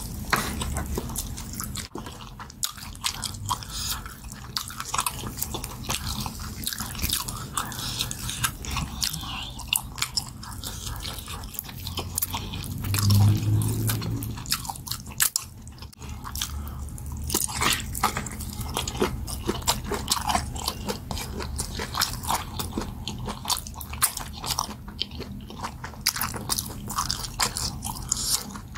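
Biting and chewing meat and skin off a boiled goat head in pepper soup, with many small clicks throughout. A short low hum from the eater about halfway through.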